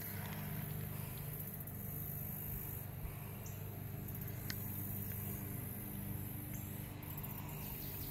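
Outdoor ambience: a steady low hum under a high insect buzz that swells and fades, with a couple of faint clicks.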